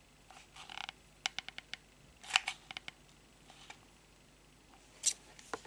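Handling noise of a hot glue gun and a small crocheted piece in the fingers: a quick run of light clicks about a second in, with short rustles and scrapes scattered around it.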